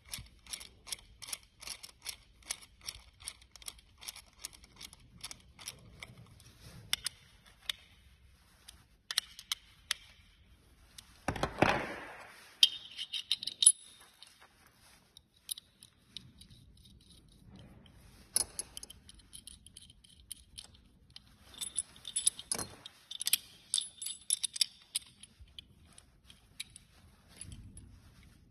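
Small metal hardware and hand tools clinking and jingling during work on a sim-racing brake pedal: a quick, even run of clicks, about four or five a second, for the first several seconds, then scattered clinks, a louder clatter about twelve seconds in, and bursts of jingling later on.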